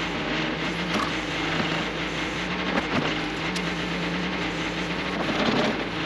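Terex 760 backhoe loader's diesel engine running steadily while its backhoe bucket works, with a few sharp knocks and cracks as the bucket tears into a mobile home's walls and debris.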